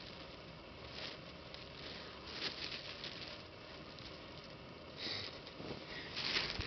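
Light kite sails and long fabric tails swishing and fluttering as they are swept through the air, in soft rushes, with the loudest rush near the end.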